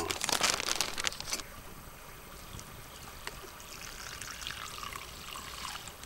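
Soy-based marinade poured from a pot into a zip-top plastic bag around a block of roast beef. Crinkling and splashing for the first second and a half, then a steady trickle of liquid.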